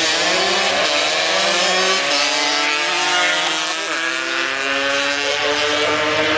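Two drag-racing motorcycles accelerating hard side by side, their engine notes overlapping, each climbing in pitch and dropping back at the gear changes, more than once.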